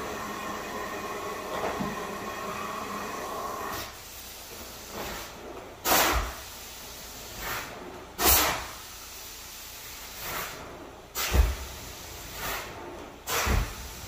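Rug-cleaning equipment: a steady hiss for about four seconds, then short bursts of hissing every second or two.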